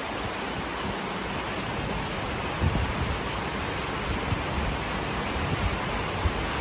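Heavy tropical downpour hissing steadily, with a few short low gusts of wind on the microphone.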